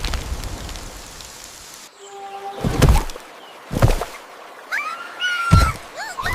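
A loud rumble fading away over the first two seconds, then heavy thuds about a second apart, with short high calls that slide up and down between the last thuds.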